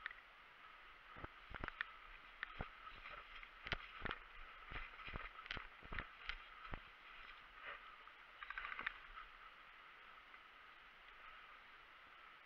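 Footsteps and gear of a player walking over a dry forest floor: irregular sharp clicks and knocks, a dozen or so, bunched in the first seven seconds with a brief flurry near nine seconds, over a steady faint high hiss.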